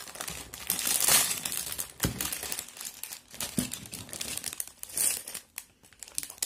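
Clear plastic bags of Lego pieces crinkling as they are handled, with two light knocks about two and three and a half seconds in.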